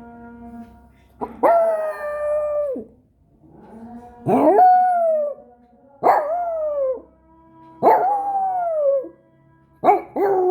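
Dog howling: five drawn-out howls with short pauses between. Each starts sharply, holds its pitch and slides down at the end.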